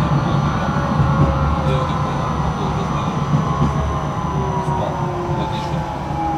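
Electric tram running on its rails, heard from on board: a steady rumble of wheels on track with a motor whine that slides slowly down in pitch as the tram slows.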